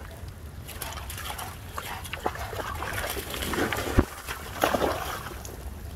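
Rottweilers panting, then running and splashing through shallow floodwater, with a sharp splash about four seconds in and more splashing just after.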